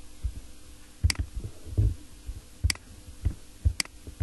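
A computer mouse clicking three times, roughly a second apart, with faint low thumps in between.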